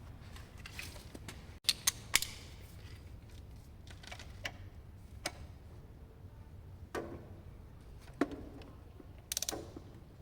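Sharp metallic clicks and clacks of hand tools as the washered bolt is refitted to the scooter's final-drive gearcase, with a quick run of ratchet clicks near the end.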